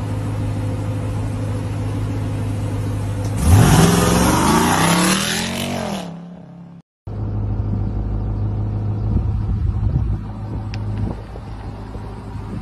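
Ram 1500 TRX's supercharged 6.2-litre V8 idling, then accelerating hard about three seconds in: the revs rise in one loud sweep and fall away as the truck pulls off into the distance. After a cut, another TRX's engine runs at a low, steady rumble.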